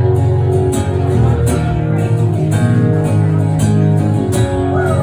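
Acoustic guitar strummed in a steady rhythm, playing the instrumental intro of a country-style song before the vocals come in.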